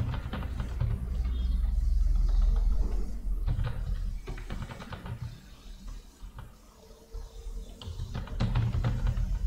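Computer keyboard keystrokes, a few scattered taps as a word is typed, over a low rumble that is loudest in the first three seconds.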